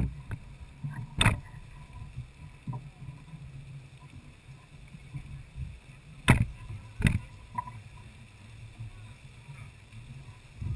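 Lady Knox geyser erupting: a steady low rumble from its jet of water and steam, broken by four sharp knocks, the loudest about six seconds in.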